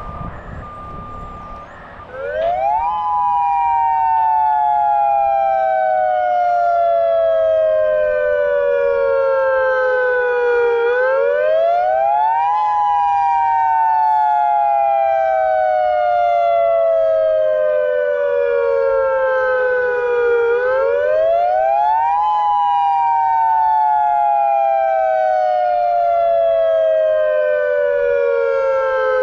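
Federal Signal Modulator 2008 dual-tone outdoor warning siren sounding the attack signal: it comes in about two seconds in, and its two pitches, moving together, sweep quickly up and then glide slowly down over about eight seconds, three times over. A steady beeping is heard before the siren starts.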